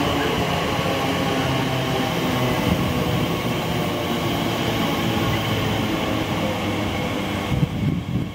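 TfL Rail Class 345 electric train running past close by: a steady hum of several pitched tones from its traction equipment over wheel and rail rumble. Near the end the train noise drops away and wind buffets the microphone in irregular gusts.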